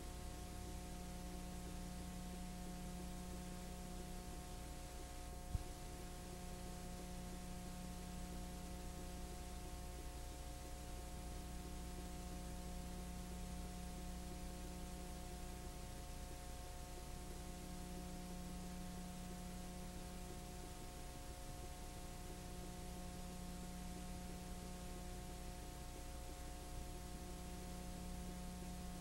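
Steady electrical hum with a layer of hiss, a low band in it swelling and fading slowly, and a single sharp click about five and a half seconds in.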